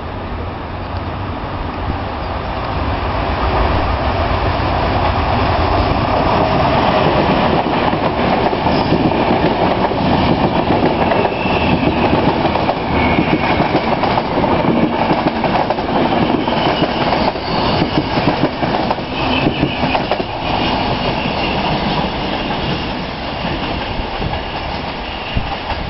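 Intercity passenger train approaching and passing close by, its coaches' wheels clattering rhythmically over the rail joints, with high wheel squeal now and then.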